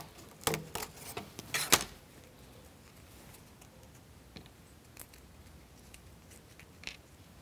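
Small laser-cut plywood model-kit parts being handled: a few sharp wooden clicks and taps in the first two seconds, the loudest just under two seconds in, then only a few faint ticks.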